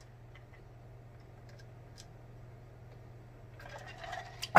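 A person drinking from a glass: faint swallowing and small mouth clicks over a low steady hum. A sudden loud burst of sound comes right at the end.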